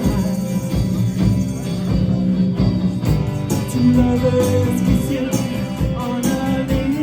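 Live indie pop band playing a song: guitars and a sung vocal, with a tambourine played along on the beat.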